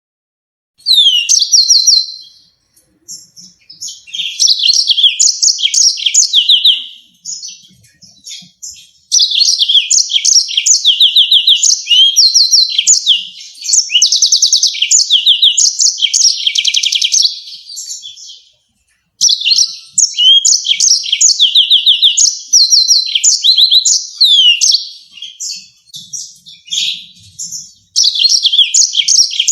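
Yellow-fronted canary singing: phrases of a few seconds each of rapid, high-pitched repeated notes and trills, broken by short pauses.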